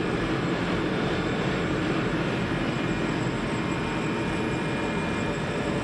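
Electrovert Electra 500F wave solder machine running, its solder pot pumping a steady wave: a constant machine noise with faint steady tones. The pot is running well.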